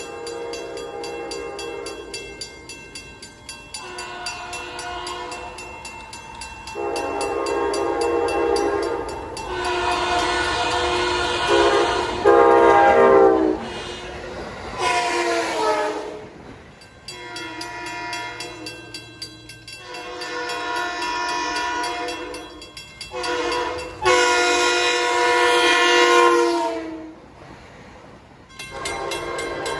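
Locomotive air horns sounding a series of long and short blasts, each a chord of several tones, several different horns one after another. In some blasts the pitch drops as the train passes.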